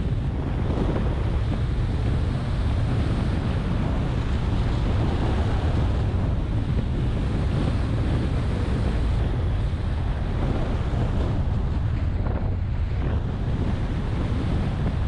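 Wind rushing steadily over the microphone of a moving Subaru WRX, with the car's turbocharged flat-four engine running underneath.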